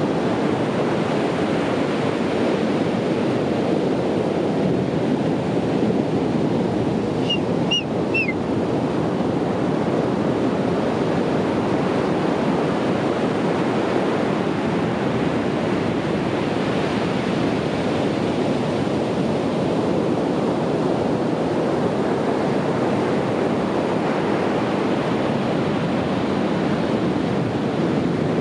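Ocean surf washing steadily on a beach, a continuous rushing noise with gentle swells as waves break. Three short high chirps cut through briefly about seven seconds in.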